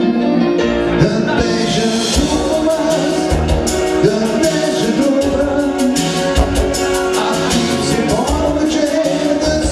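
A man singing into a handheld microphone over music with a steady beat.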